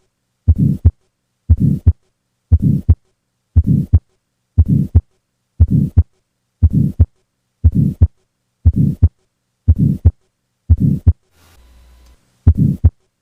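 Heart sounds heard through a stethoscope in tetralogy of Fallot, beating about once a second. Each beat carries a systolic murmur, the ejection murmur typical of the right ventricular outflow (pulmonary) stenosis in this condition. Near the end one beat is missing, with a faint hum in its place.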